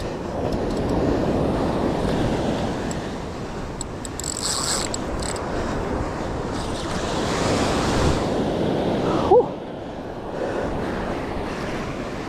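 Ocean surf washing and breaking on the shore in swelling, ebbing waves, with wind on the microphone. A brief sharp squeak about nine seconds in is the loudest moment.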